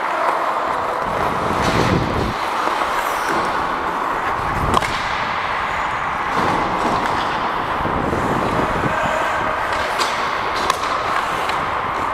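Ice hockey play on a rink: skate blades scraping and carving the ice, with several sharp clacks of sticks and puck.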